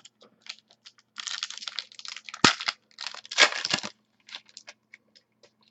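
Trading cards and their plastic packaging being handled close up: crinkling rustles and light clicks, with one sharp click about two and a half seconds in.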